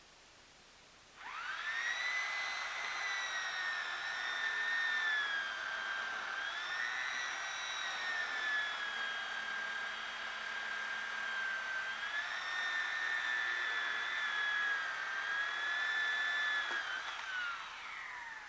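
Chainsaw revved up to high speed about a second in and held there, its pitch dipping and recovering as it cuts through a log, then falling away as the throttle is released near the end.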